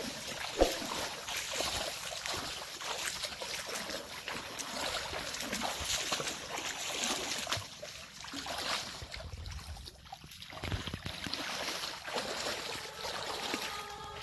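Feet wading through shallow muddy water, with irregular splashing and sloshing and a single sharp knock about half a second in.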